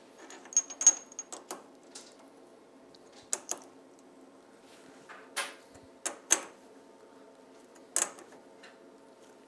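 A lathe tool bit being set into the four-way tool post by hand: scattered sharp metal clicks and knocks, a cluster about a second in, then single and paired taps every second or two.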